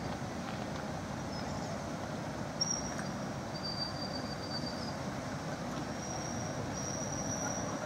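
Steady low running noise of a canal hire boat's engine as the boat moves slowly through a lock, with a few thin, high squeals about a second long each.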